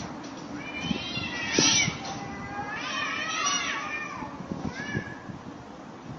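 Cats meowing and yowling in several drawn-out, wavering calls, the loudest about one and a half and three seconds in, with a shorter call near the end.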